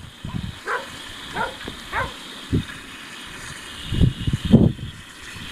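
A dog yipping a few short times, with louder barks about four seconds in.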